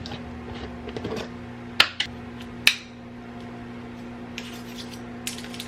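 Kitchenware being handled: light clinks and taps, with three sharper knocks about two seconds in and smaller ticks near the end, over a steady low hum.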